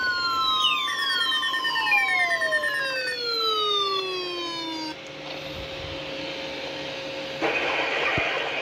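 NOAA Weather Radio warning alarm test broadcast: a steady alarm tone, with several tones sliding down in pitch layered over it. The alarm stops about five seconds in, leaving radio static, and a voice starts faintly over the static near the end.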